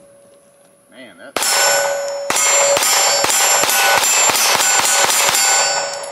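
Semi-automatic pistol fired in a rapid string of about a dozen shots in roughly four seconds, starting about a second and a half in, with steel targets clanging and ringing as they are hit.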